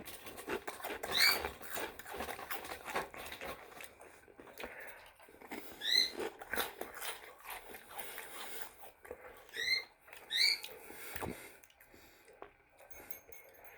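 Close-up crunching and chewing of tortilla chips, a run of small irregular crackles. A few short rising chirps from pet birds cut in, once about a second in, once midway and twice in quick succession later.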